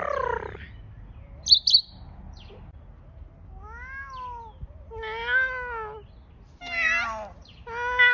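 African grey parrot vocalising: a quick sharp double whistle, then four drawn-out calls that rise and fall in pitch.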